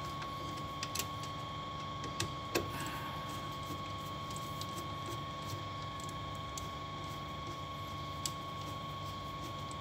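A screwdriver working the terminal screws of a magnetic contactor, giving a handful of small clicks and taps, the loudest about two and a half seconds in, over a steady hum with a thin high tone.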